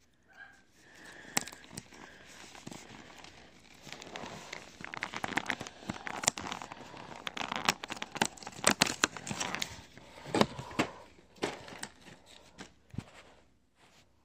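Cardboard door of a chocolate advent calendar being torn open by hand and its packaging crinkled: a long run of tearing, crackling and rustling, thickest in the middle and dying away near the end.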